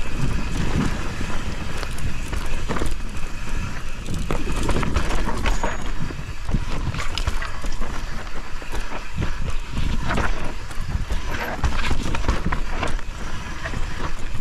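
Mountain bike descending a rocky, loose dirt trail: tyres crunching over dirt and stones and the bike rattling over bumps in frequent irregular knocks, under a steady rumble of wind on the camera microphone.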